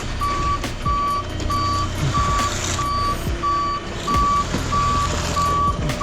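Concrete mixer truck reversing: its backup alarm beeps steadily, about three beeps every two seconds, over the low running of the truck's engine.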